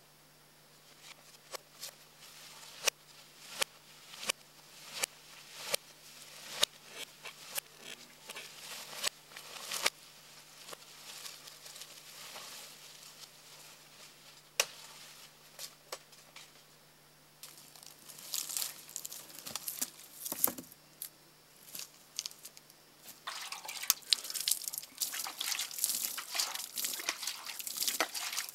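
Machete blows chopping into brush and branches, sharp strikes about every 0.7 seconds for the first ten seconds, then a few scattered blows. In the last third, a denser stretch of crackling and rustling.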